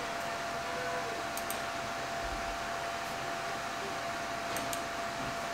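Steady fan whir from a running 2009 Mac Pro's cooling fans, with a faint steady hum in it. Faint clicks come twice, about a second and a half in and again near the end.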